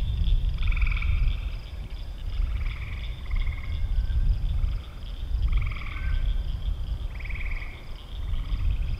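Frogs calling at dusk: a chorus of short trilled calls, each about half a second long, overlapping irregularly, over a low rumble.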